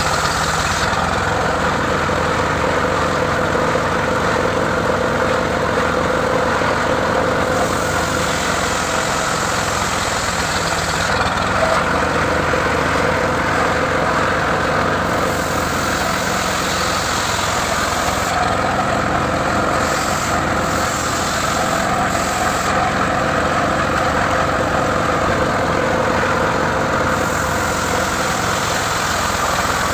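Engine running steadily, the power unit of a home-built mobile circular saw rig.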